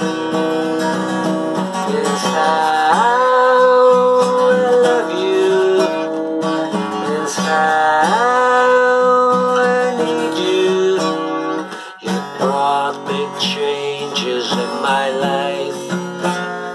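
Steel-string acoustic guitar strummed in a steady accompaniment, with a man's long held sung notes that slide up into pitch twice, about three and eight seconds in.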